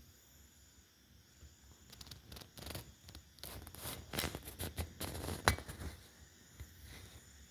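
Kitten paws and claws scuffing and clicking on a tiled floor: a string of short, light clicks and scrapes in the middle of the stretch, the sharpest a little past five seconds in.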